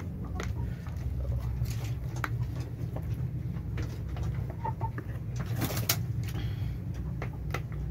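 Village chickens pecking and moving about in a coop, making scattered light taps and scratches. A short soft chirp comes a little past halfway, over a steady low hum.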